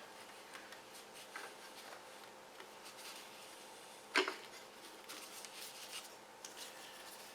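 Faint tapping and handling of tools or engine parts, with one sharp clink about four seconds in.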